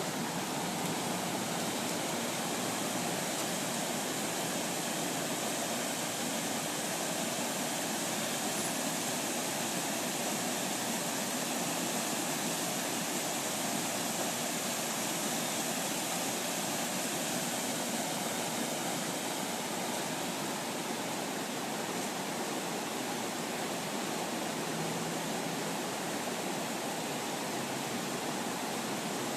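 Steady, unbroken rush of fast-flowing floodwater.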